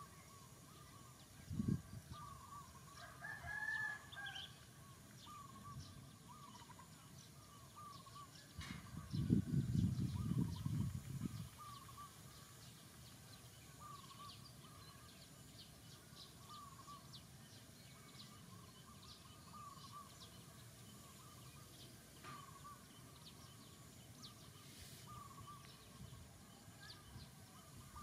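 A rooster crows once, about three seconds in, over short bird chirps that repeat every second or two. A thump comes just before the crow, and a low rumble lasting a couple of seconds near the middle is the loudest sound.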